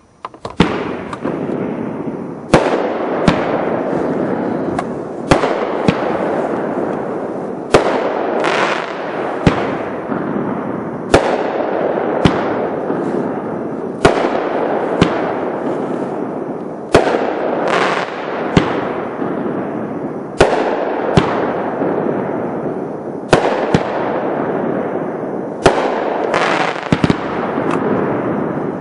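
A BIG brand 'Lightning' consumer firework cake firing: sharp bangs every one to two seconds, some in quick pairs, over a continuous hiss that fills the gaps between reports.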